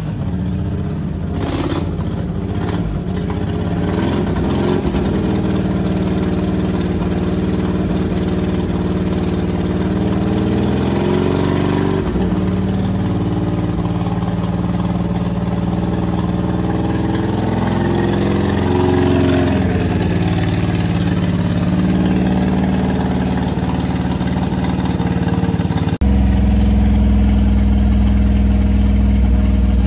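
Daihatsu Hijet kei pickup's small three-cylinder engine running as the truck creeps along, its note rising and falling with the throttle, with a few knocks in the first seconds. About 26 s in it changes abruptly to a louder, lower drone heard from inside the cab.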